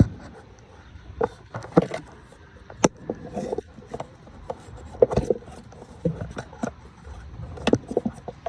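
Irregular clicks, knocks and light scraping of metal hand tools and engine parts being handled, a few sharp knocks spaced unevenly through the stretch.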